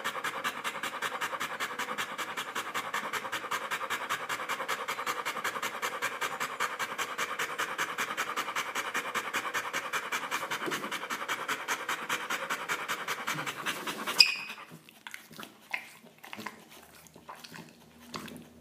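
A boxer dog panting fast and evenly with its mouth open and tongue out, worn out after a walk. About fourteen seconds in the panting stops with one sharp click, and only a few faint small sounds follow.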